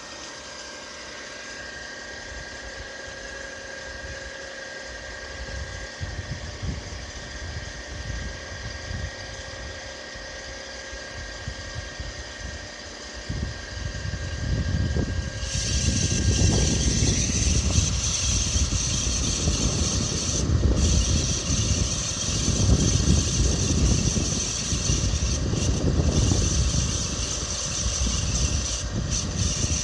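Mitsubishi Pajero IV 3.0 V6 engine running during a cold winter warm-up, the state in which it makes an extraneous noise that goes away once the engine nears working temperature. Steady thin whining tones sit over the engine at first; about halfway through it becomes louder, with a rumble and a hiss that starts suddenly.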